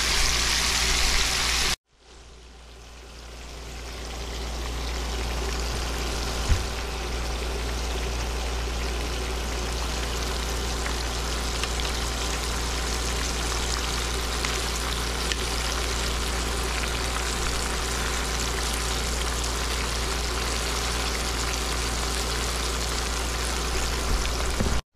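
Whole snapper deep-frying in hot oil: a steady sizzling, bubbling hiss over a low hum. The sound cuts out just before two seconds in and fades back up, with a single knock about six and a half seconds in.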